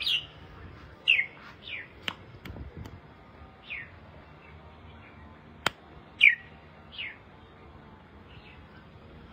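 Red-whiskered bulbul giving short, falling chirps at irregular intervals of a second or so. A single sharp click sounds a little past halfway.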